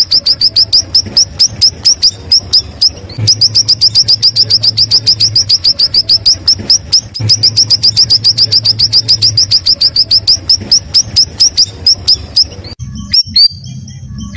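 Cucak rawis bulbul singing a loud, rapid chatter of short, sharp down-slurred notes, about seven a second, in long runs with brief pauses. Near the end the notes become sparser.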